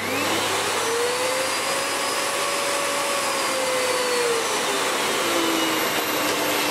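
Miele S7 upright vacuum cleaner switched on: the motor spins up with a rising whine over an even rush of air, then settles to a lower steady pitch about five seconds in. Its exhaust air passes through a newly fitted aftermarket HEPA post-motor filter, which quietens the machine a bit.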